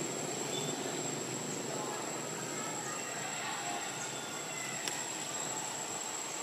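Steady outdoor background noise with a thin, high-pitched steady whine. A single sharp click comes about five seconds in.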